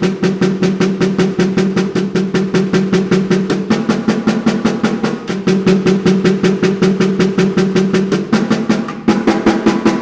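Snare drum played in a fast, even stream of strokes, about seven a second, each stroke carrying a pitched ring. Its sound is altered by an old drum head cut round and laid on top of the snare's batter head.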